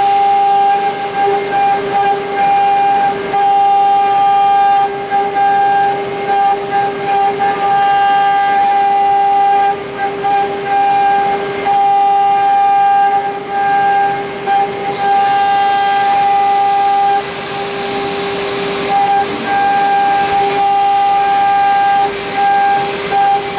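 2.2 kW water-cooled spindle of an SM-4040 mini CNC router, with its cutter engraving a metal block, likely aluminium. It gives a loud, steady high-pitched whine over a cutting hiss, briefly dipping now and then as the cut changes.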